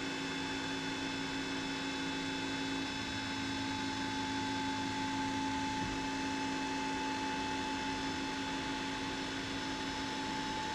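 Desktop 3D printer running mid-print: a steady hum with a constant high-pitched whine and faint hiss from its fans and motors as the print head moves.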